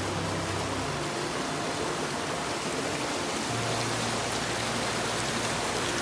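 Steady rushing of a rocky woodland stream, mixed with background music of slow sustained low chords that change every couple of seconds.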